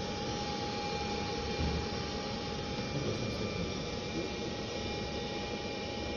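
Steady running hum of SMT production-line machinery, with a thin constant whine over an even noise.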